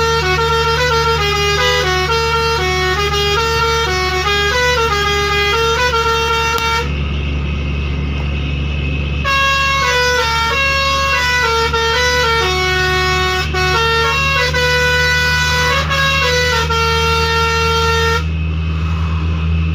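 Six-trumpet, 31-tone basuri telolet air horn playing a stepping melody of short notes, with a pause of about two seconds midway and another near the end. A steady low hum runs underneath.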